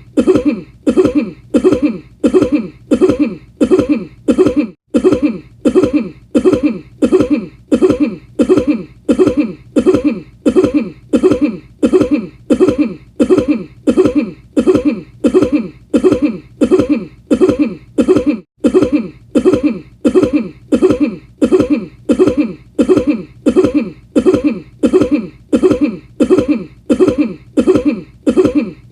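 A single cough repeated over and over at an even pace, about two coughs a second, each one the same: one recorded cough looped.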